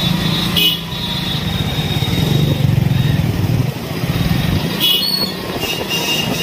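Small two-wheeler engine running close by in street traffic, easing off briefly past the middle, with short horn beeps about half a second in and again near the end.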